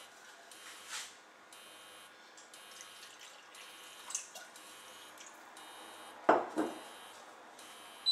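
Liquid poured from a small bottle into a ladle and tipped into a saucepan of sauce: faint trickling and dripping, with a short double splash about six seconds in, the loudest sound.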